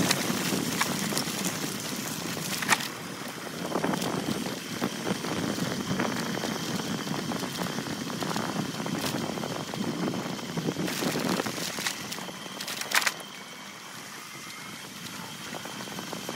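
Crackling, rustling noise from a camera carried along a road on the move, with a few sharp clicks, the loudest about three seconds and about thirteen seconds in. It gets quieter for the last few seconds.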